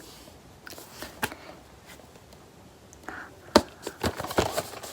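A small cardboard perfume box being handled: scattered light taps and knocks with a little rustling. The sharpest knock comes about three and a half seconds in.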